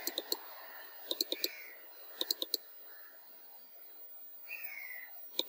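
Computer mouse clicking: quick clusters of three or four sharp clicks, about one cluster a second, three times in the first couple of seconds, as style thumbnails are selected. A short falling chirp is heard about four and a half seconds in.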